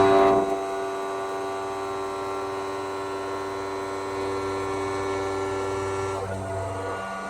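Syil X7 CNC mill running a helical endmill through steel: a steady high-pitched whine that changes about six seconds in.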